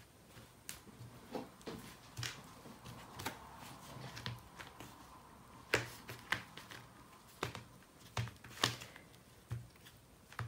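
Irregular soft taps, clicks and rustles as a raw chicken drumstick is pressed and turned in a thin plastic tray of dry seasoned flour.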